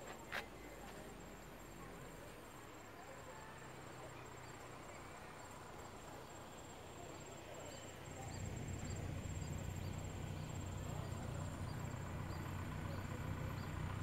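Insects chirping in an even rhythm, about two chirps a second, over outdoor ambience. About eight seconds in, a low rumble comes in and the sound grows louder.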